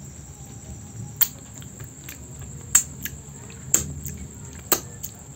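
Crickets chirring steadily with a high, even tone, and a man's mouth smacking loudly as he eats, four sharp smacks about a second apart.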